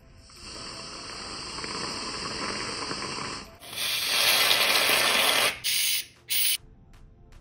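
Aerosol can of whipped cream spraying: a spurt of about three seconds, a louder one of about two seconds, then two short spurts near the end.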